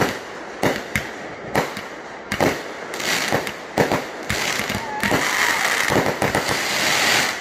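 Aerial fireworks going off close by: a string of sharp bangs from launches and bursting shells, then from about three seconds in a dense crackling hiss that fills the gaps between the bangs and drops away just before the end.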